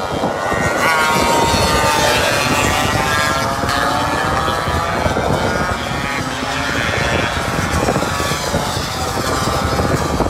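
Several two-stroke racing scooters passing at speed, their engine notes rising and falling as they go by, with heavy wind buffeting on the microphone.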